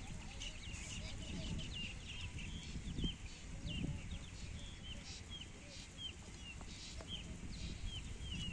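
Small birds calling: short, repeated curved chirps, about two a second, over a low rumbling background noise.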